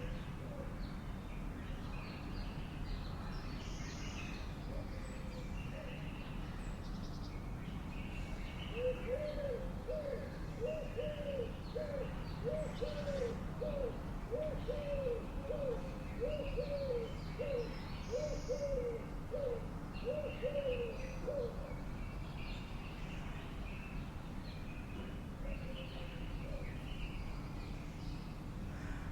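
A bird giving a series of about a dozen low, evenly spaced calls, roughly one a second, starting about nine seconds in and stopping after some twelve seconds. Scattered higher chirps from small birds run throughout, over a steady low background rumble.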